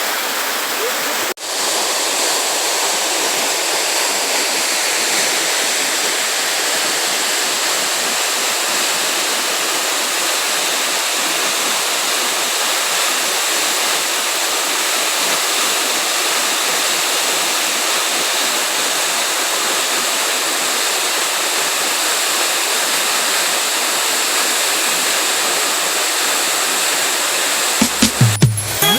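Waterfall water rushing in a steady, even roar, with a brief cut about a second in before it carries on. A few low bumps sound near the end.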